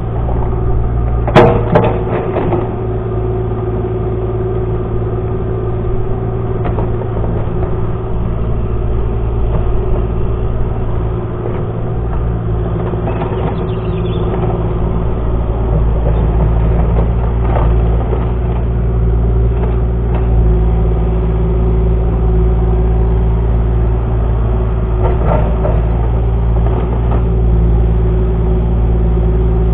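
Excavator engine running steadily, with a few knocks over it; the loudest comes about a second and a half in.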